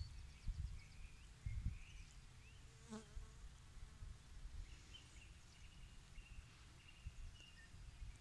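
Quiet open-air ambience: wind gusting on the microphone in low, uneven rumbles, with faint short bird chirps in the distance.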